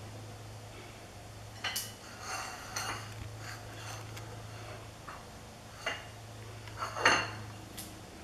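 Tea-set dishes clinking and knocking in several short, separate clatters, some with a brief ring. The loudest comes near the end.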